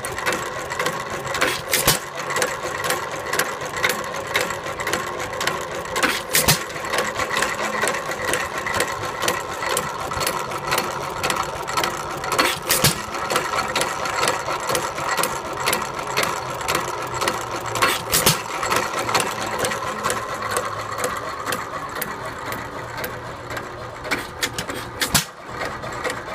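1919 Hercules Model E 3 HP hit-and-miss stationary gasoline engine running slowly, with a steady clatter from its valve gear and linkage. A louder sharp pop comes roughly every five to six seconds. The owner says this engine wheezes a bit and misses a beat here and there.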